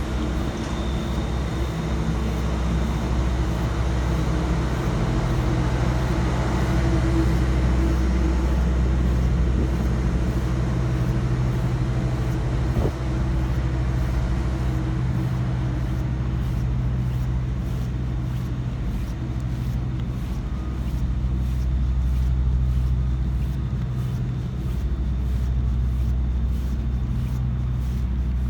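A large engine running steadily with a low, even hum.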